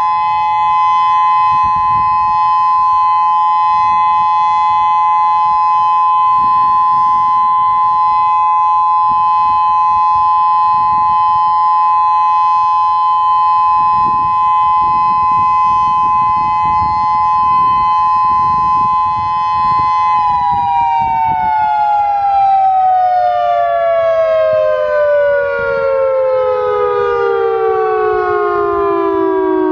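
Federal Signal Modulator 4016 electronic outdoor warning siren sounding its steady dual-tone Alert. About twenty seconds in, the two tones glide smoothly down in pitch together as the alert winds down.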